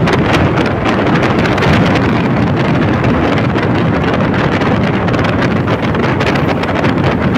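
Steady wind noise over the microphone of a Honda Click 125i scooter cruising at about 55 to 60 km/h, with the ride's road and engine noise underneath.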